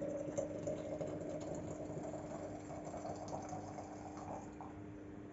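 Hot water being poured into a container, a rising tone as it fills, stopping about four and a half seconds in, over a steady low electrical hum.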